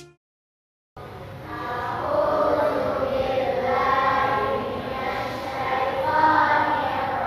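After about a second of silence, a group of girls chanting Quran verses together in unison, their voices echoing in a tiled hall.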